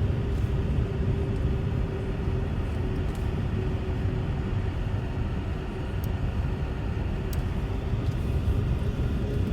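Strong storm wind buffeting the microphone: a steady, rough low rumble with a faint steady hum underneath.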